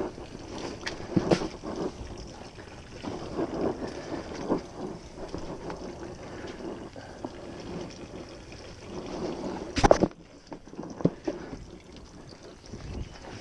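Fabric outboard-engine cover rustling and rubbing as it is pulled and tugged down over the motor, with a few sharp knocks from handling; the loudest knock comes about ten seconds in.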